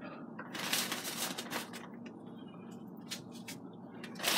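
Plastic zip-top bag rustling and crinkling in short, irregular spells as a hand works chicken wing pieces in dry breading mix inside it.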